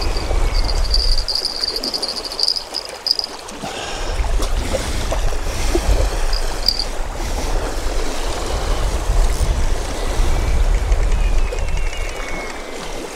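Wind buffeting the microphone with a low rumble, over small waves lapping on a rocky lakeshore. A steady high whistle sounds for the first three seconds or so.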